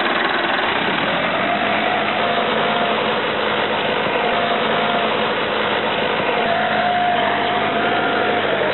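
Tractor engine running steadily as it pulls a mechanical cassava harvester through the soil, with a faint wavering whine over the engine noise.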